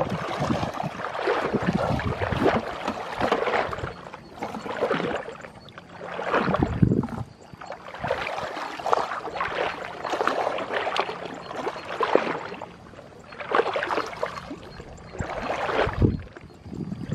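Legs wading through knee-deep muddy water, sloshing and splashing in uneven surges with each step, with reed stems brushing against the body.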